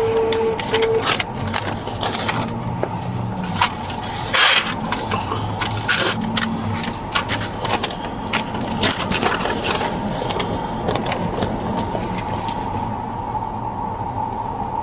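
Rustling and clicking handling noises over a steady hum, with two short electronic beeps at the start.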